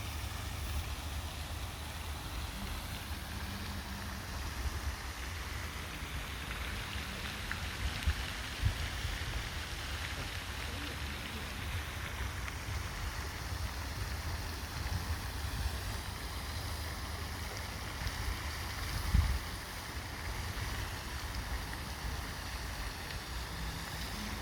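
Wind rumbling on the microphone over a steady rush of lake water, with two brief low thumps, the louder one near the end.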